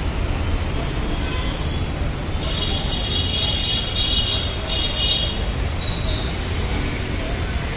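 Road traffic rumbling steadily, with a vehicle horn sounding about two and a half seconds in: one long honk of about two seconds, then a short second toot.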